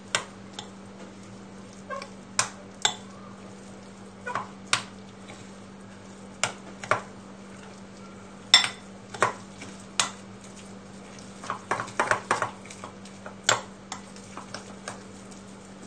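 A spoon stirring thick semolina-and-curd batter in a ribbed glass bowl, with irregular sharp clinks as it knocks and scrapes against the glass, busiest toward the end. The mixing is the start of rava idli batter. A steady low hum runs underneath.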